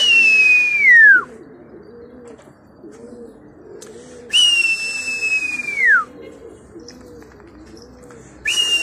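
Three long, loud whistles about four seconds apart, each held high and then falling away at the end: a pigeon keeper whistling to his flying flock. Domestic pigeons coo steadily underneath.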